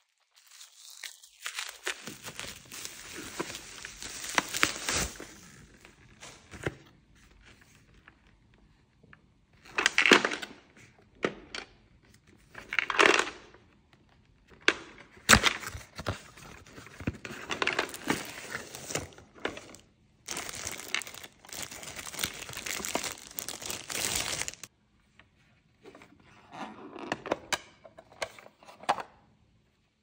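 Bubble-wrap packaging being torn open and crinkled by hand, then a cardboard box being opened and a plastic toy refrigerator taken out: on-and-off tearing and rustling in bursts, with short pauses and a few sharp clicks.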